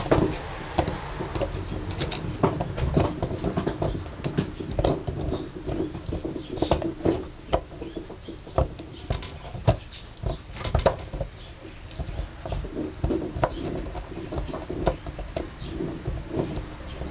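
Basset hound chewing on a chew, its jaws making irregular wet smacks and clicks.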